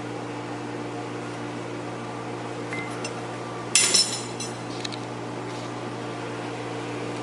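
A steady machine hum, with a single sharp metallic clink that rings briefly about four seconds in, as of steel tools striking or being set down.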